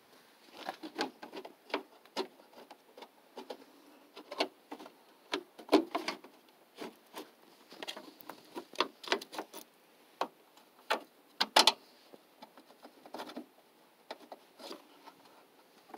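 Irregular small clicks and knocks of a hard plastic cover being handled and pressed into place on a minivan's radiator support, a few taps at a time with short pauses between.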